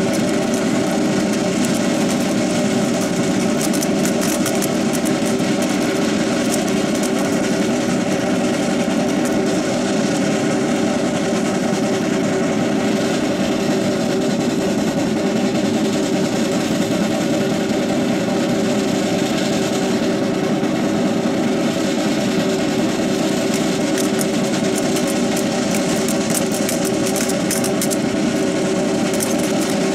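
An engine drones steadily, holding several fixed hum tones at an even level. A few sharp clacks sound now and then over it.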